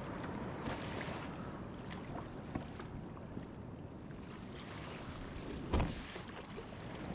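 Steady rushing water noise with scattered faint ticks, and one louder low thump about six seconds in.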